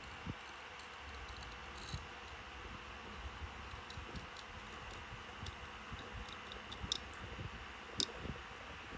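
Hand deburring tool's swivel blade scraping along the machined edge of an aluminum cylinder head's combustion chamber, shaving off the sharp burr: faint scattered ticks and scrapes, with two sharper clicks near the end, over a steady hiss.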